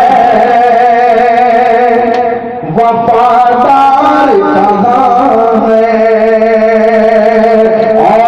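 Naat sung by a male voice in long held melodic notes with no clear words, briefly dropping away between about two and three seconds in.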